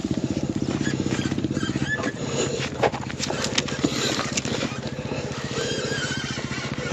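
Dirt bike engine idling steadily at a fast, even beat. A few knocks and rattles of the bike being handled come in the middle.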